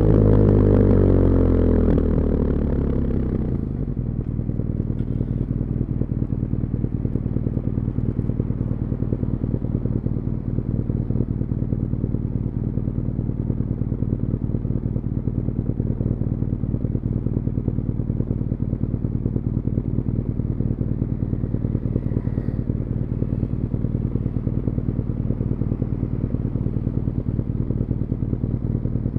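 BMW R nineT Urban GS's 1170 cc boxer twin through its stock muffler, the revs falling as the bike slows over the first few seconds, then idling steadily at a stop.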